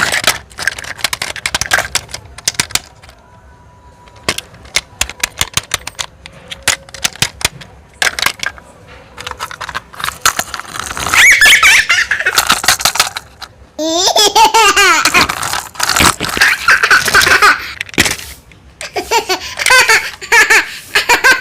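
Sharp clicks and knocks for the first few seconds. Then, from about ten seconds in, loud repeated laughter that sounds like a young child's.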